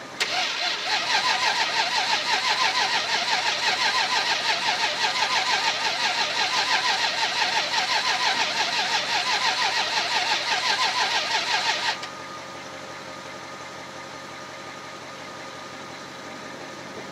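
A second-generation Dodge Ram pickup's starter cranks the engine over in a steady rhythm for about twelve seconds without it catching, then stops suddenly. The truck has sat all winter with a dead battery and is being jumped. Another truck's engine keeps idling underneath.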